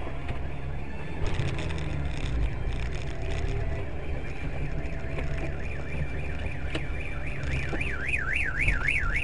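Steady low engine and road rumble of a car in traffic, heard from the dashcam inside the car. About three-quarters of the way in, an electronic alarm starts warbling up and down about three times a second and becomes the loudest sound.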